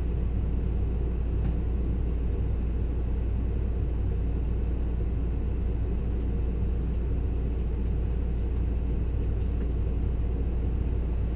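A steady low hum and rumble, unchanging in level throughout, like machinery running in the background.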